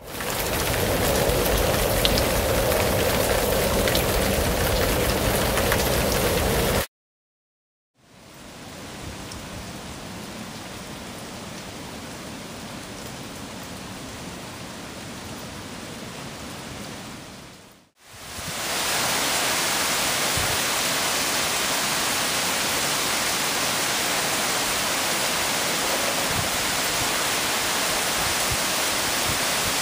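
Heavy rain falling steadily, an even hiss, broken by edits: it cuts to silence about seven seconds in, comes back quieter for about ten seconds, then runs louder and steady from about eighteen seconds.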